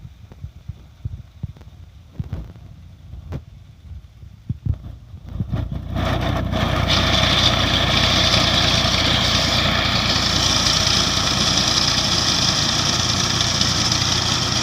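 Massey Ferguson 240 tractor's three-cylinder diesel engine working a tractor-mounted reaper through standing wheat, the engine and the reaper's cutter clatter low and faint at first, then loud and steady from about six seconds in as it comes close.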